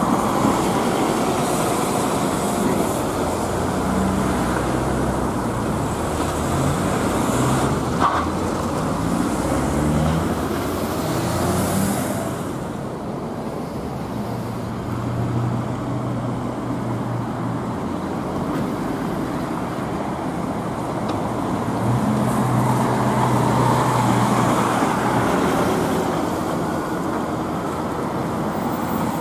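Diesel city buses driving past: engines pulling away and climbing through the gears with rising engine notes, with a short hiss near the middle, then more buses running at a steady low engine note.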